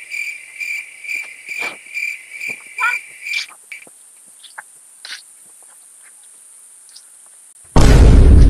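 Crickets chirping: a steady high insect trill with a pitched chirp repeating about twice a second for the first three or four seconds. Near the end, a loud, sudden burst of noise cuts in for under a second.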